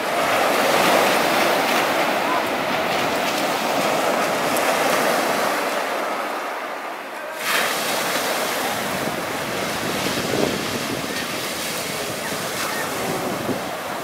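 Ocean surf breaking and washing up a sandy beach in a steady, continuous rush. The sound jumps abruptly about halfway through, where one recording gives way to another.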